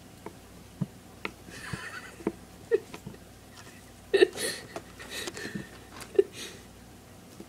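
Kitten scrambling inside a carpet-covered cat-tree cubby: scattered soft knocks, scratches and rustles, with a few short squeaky blips.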